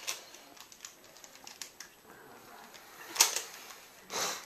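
Rubik's cube being turned quickly in the hands, its plastic layers clicking in a rapid, irregular patter, with two louder clacks about three and four seconds in.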